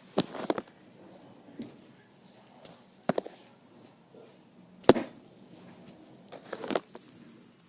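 Clicks and knocks of a metal fidget spinner being handled and flicked, the loudest knock about five seconds in, with a faint high rattle in the middle stretch. The spinner is not spinning as it should.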